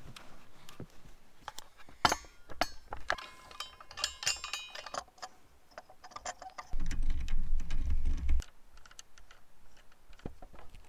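Irregular clicks and ringing metallic clinks of astrophotography gear (telescope, mount and fittings) being handled and fitted together, with a louder low rumble for about a second and a half past the middle.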